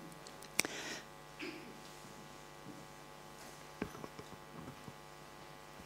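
Quiet room tone with a steady electrical hum and a few faint knocks.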